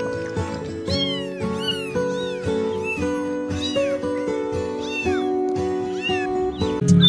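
Cat meowing over and over, a string of short rising-and-falling meows about one a second, over background music.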